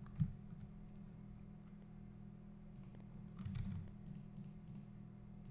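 Computer keyboard and mouse clicks over a steady low hum: one sharp click about a quarter second in, then a short cluster of key presses around three to four seconds in, among them Ctrl+S to save the file.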